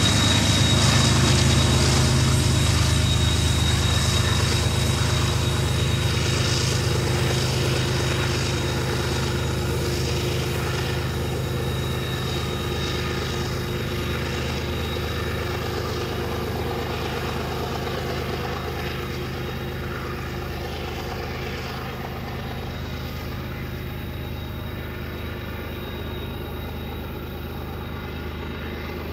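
BNSF diesel locomotives working upgrade with a loaded oil train: a steady, deep engine drone with a thin high whine, slowly fading.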